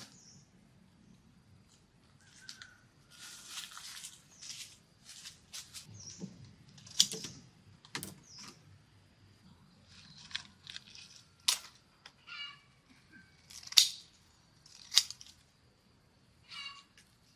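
Irregular bursts of rustling and sharp snaps and clicks from plant material being handled and cut, with a faint steady high tone behind. Two short harsh calls come out, one about two-thirds of the way in and one near the end.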